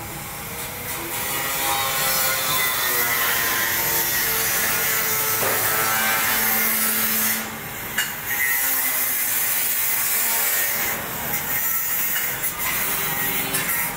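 A power tool grinding metal, a harsh steady noise with ringing overtones that changes pitch now and then, breaking off briefly about seven seconds in and faltering again around eleven seconds.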